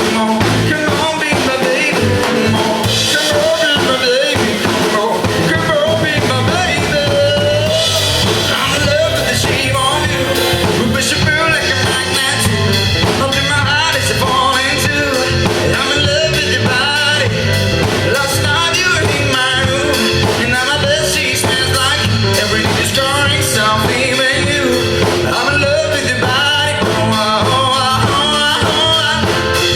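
Live pop band playing a song: drum kit and bass keep a steady beat under a wavering lead melody.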